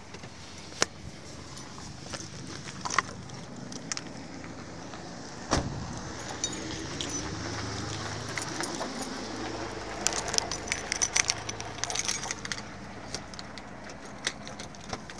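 A bunch of keys jangling in a hand, with scattered clicks and a dense run of metal jingling later on as a key is worked into a doorknob lock.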